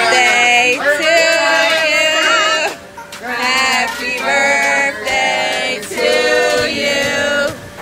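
Music with singing: sung phrases, with short breaks about three and six seconds in.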